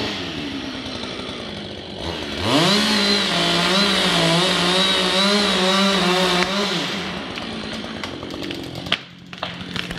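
Chainsaw idling, revved up to high speed about two seconds in, held at full throttle with a slightly wavering pitch for about four seconds, then dropping back to idle. A few sharp clicks near the end.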